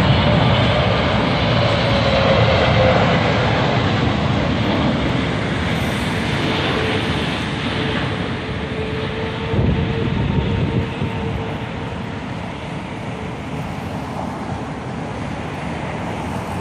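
Engines of a Boeing 777-300ER on final approach passing low overhead: a loud, steady jet rush with a whine that glides down in pitch as the plane goes by. The sound then fades gradually as it moves away.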